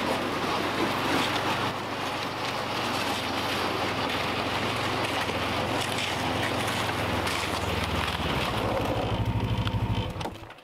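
Ski-Doo snowmobile engine running as the machine drives up, then settling to an evenly pulsing idle and shutting off suddenly shortly before the end.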